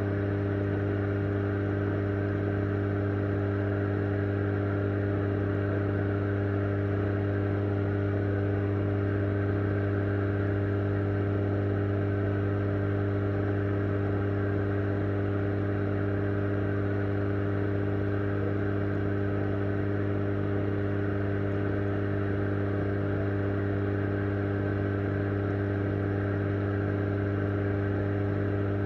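Steady low electric hum of aquarium pump equipment heard underwater, with evenly spaced higher overtones, over the hiss of air bubbles rising in the tank.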